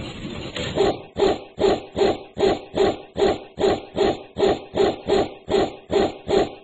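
A dog barking over and over in an even rhythm, about two and a half barks a second, starting about a second in.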